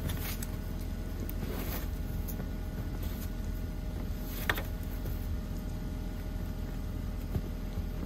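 Car engine idling with a steady low hum, with a few short scrapes early on and a sharp knock about four and a half seconds in.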